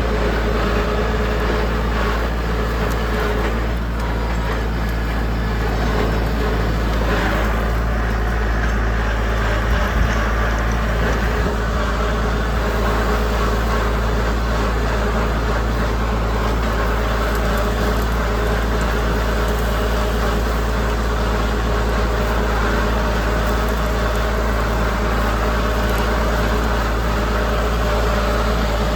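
Tractor engine running steadily under load while pulling a no-till drill through standing cover. The low hum stays constant throughout.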